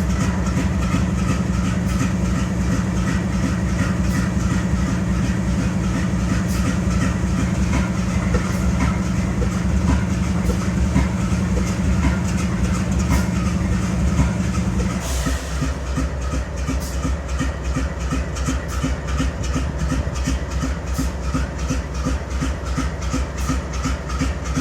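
GE Dash 9-44CW locomotive's 16-cylinder 7FDL diesel idling with a misfire, a sign of engine trouble. A steady hum runs over the idle and cuts off about fifteen seconds in, after which the engine's rhythmic idle beat stands out more plainly.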